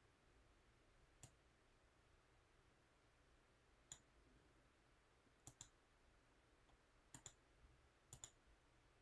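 Faint computer mouse button clicks: single clicks, then three quick pairs of clicks near the end.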